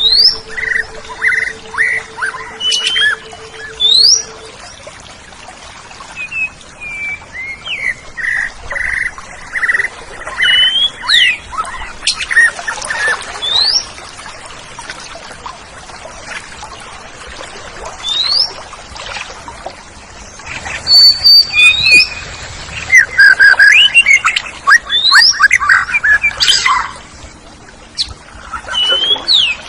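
Oriental magpie-robin (kacer) singing: varied phrases of sharp rising whistles and quick runs of repeated notes, with the loudest, densest stretch of rapid notes in the last third.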